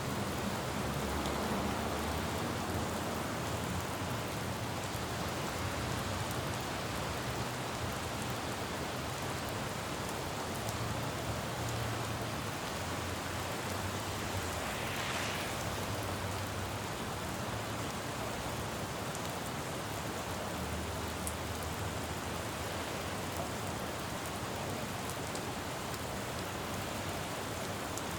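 Steady rain falling on a city road, with the low rumble of traffic coming and going and a brief hiss about halfway through.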